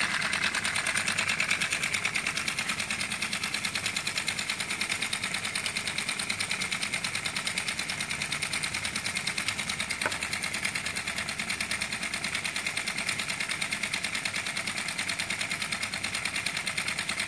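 3D-printed plastic model steam engine running on compressed air, with a rapid, even pulsing of exhaust air. It slows from about 1,100 to under 700 rpm.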